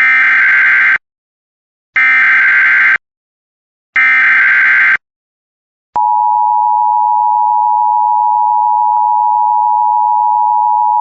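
Emergency Alert System SAME header: three one-second bursts of screeching digital data tones, a second apart. About six seconds in, the steady two-tone EAS attention signal starts and holds, announcing an emergency alert.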